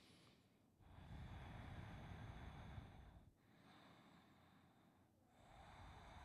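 Faint, slow breathing of a man holding a deep forward-bend stretch: three long, soft breaths in a row, separated by short pauses.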